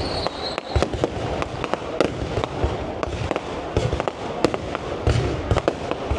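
Aerial fireworks going off in a rapid, irregular string of sharp bangs and deep booms, with a high whistle fading out just after the start.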